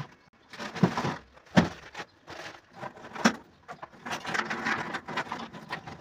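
Small objects being handled and set down: about three sharp knocks, with rustling between them and longer rustling in the second half.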